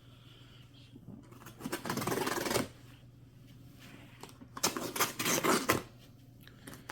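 A knife cutting open the packaging of a firework cake: two scraping, slicing strokes about a second long each, one around two seconds in and one around five seconds in.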